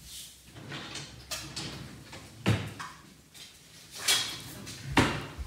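Handling noise: rustling, with two sharp knocks, one about halfway through and a louder one near the end.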